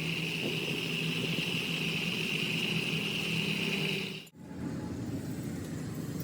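A motor running steadily with a low hum and a high, steady whine; it cuts off abruptly about four seconds in, and a quieter, lower machine hum follows.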